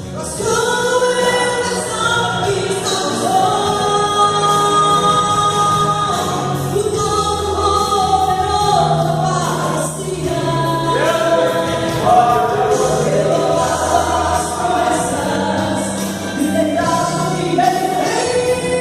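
Brazilian gospel song: sung vocals with a choir-like backing over an instrumental accompaniment with a steady bass.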